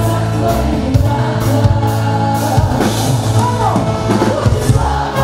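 Live concert music: a band with drum kit and bass playing a song, with singing over it.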